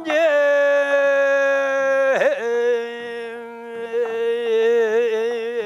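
A monk's solo Buddhist chant (beompae), one male voice holding a long drawn-out note that steps down in pitch about two seconds in and begins to waver near the end.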